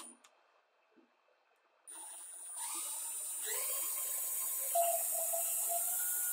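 Power drill starts about two seconds in and runs steadily with a high whine. It stops abruptly at the end. The drill is spinning a screw head clamped in its chuck, grinding a countersink into a pine board.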